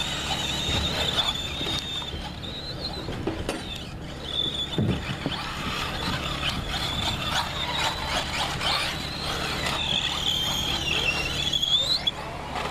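Radio-controlled 1/10-scale 4WD buggies racing on dirt: a high-pitched whine of their motors and drivetrains rises and falls with their speed, with short clicks and knocks scattered through it.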